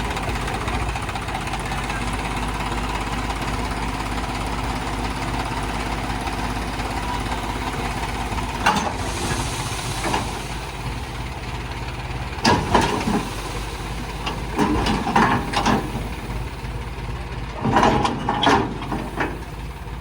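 HMT tractor's diesel engine running steadily through a newly fitted silencer, with several short louder sounds over it in the second half.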